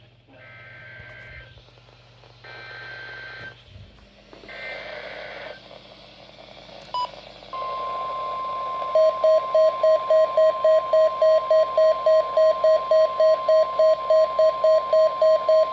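NOAA Weather Radio alert: three short bursts of warbling two-tone SAME data header, then the steady 1050 Hz warning alarm tone. About nine seconds in, a receiver's pulsing alert beep, nearly three beeps a second, starts over the tone and becomes the loudest sound.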